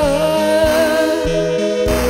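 Live music: a woman singing one long held note over an instrumental backing with a low bass line that moves between notes.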